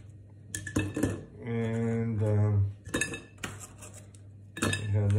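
Crumpled aluminium foil crinkling and crackling in a hand in sharp, irregular snaps. A man's voice hums briefly about one and a half seconds in.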